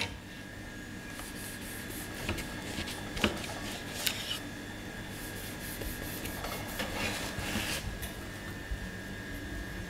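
A knife sawing through the baked crust of a seeded bread roll, in irregular scratchy strokes with a few sharper clicks, the knife touching the cutting board.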